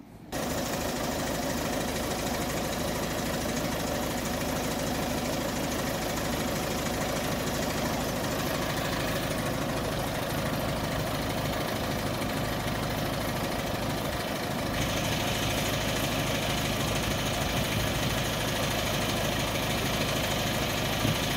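Narrow-gauge diesel locomotive No. 3 Enterprise idling steadily while standing at the platform. It gets a little louder from about fifteen seconds in.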